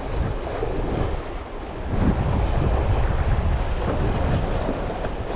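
Wind buffeting the microphone over sea waves washing against breakwater rocks, a steady rushing that gets louder about two seconds in.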